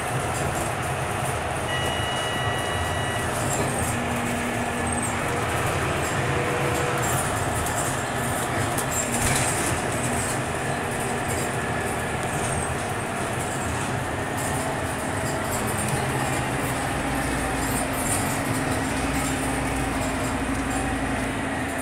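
Cabin noise of a moving Scania K320UB bus: the rear-mounted diesel engine running with tyre and road noise, steady, and a short high two-tone beep about two seconds in. A low drone swells near the end.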